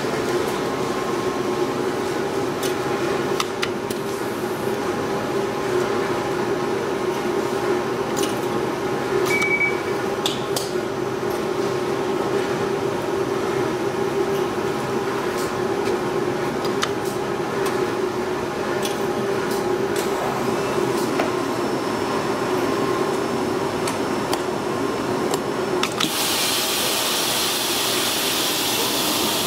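YAC Japan YIK-016X automatic jacket ironing machine humming steadily, with scattered clicks, while a jacket is clamped onto its form. About 26 seconds in, a loud hiss starts.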